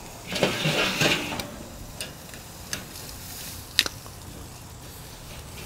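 Thick ham steak searing over hot charcoal on a kettle grill: a soft sizzle, louder in the first second, with a few sharp clicks, the loudest nearly four seconds in.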